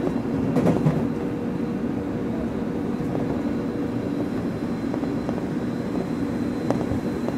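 Steady low hum of a Tobu 30000 series electric train standing at the platform, with a faint high-pitched tone over it and a few light knocks.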